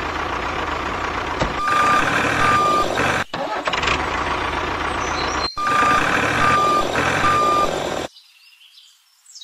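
Tractor engine running steadily while a reversing alarm beeps, twice about two seconds in and three times near six to eight seconds, as the tractor backs up to couple a trailer. The engine sound breaks off briefly twice and cuts off suddenly about eight seconds in.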